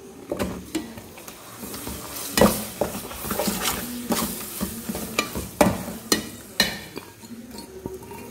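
A metal spoon stirring dates into a thick chilli pickle paste in a metal pot, scraping and knocking against the pot, with the paste sizzling in oil. The loudest knock comes about two and a half seconds in, and a run of sharper clicks follows a few seconds later.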